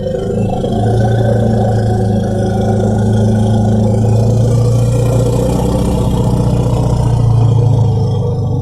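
Film sound effect: a steady, deep, engine-like rumble with a low hum and a few higher tones over it, lasting about ten seconds.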